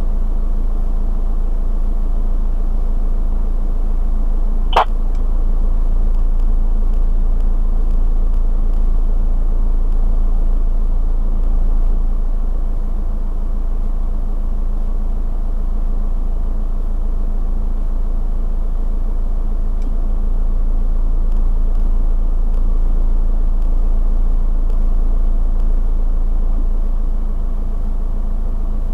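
A four-wheel-drive's engine idling: a steady, even low rumble. A single brief sharp click sounds about five seconds in.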